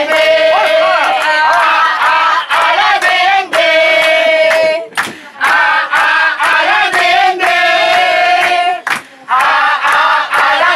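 A group of people singing a song together, clapping their hands to the beat, with two short breaks between phrases.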